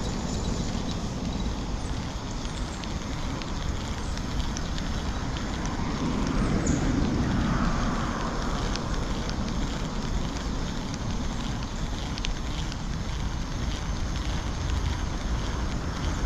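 Wind rumbling on the microphone outdoors, a steady low noise that swells briefly about halfway through, with a few faint ticks.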